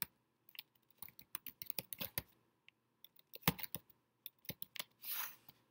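Keystrokes on a computer keyboard, typing a search query in quick irregular runs. One heavier key click comes about three and a half seconds in, and a short hiss follows near the end.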